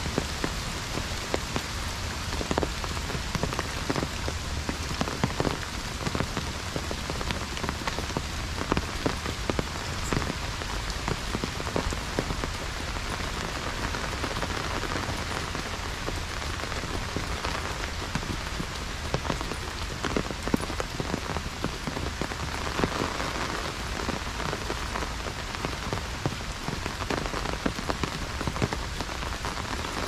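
Heavy rain drumming on an umbrella: a steady dense hiss with many sharp drop taps throughout.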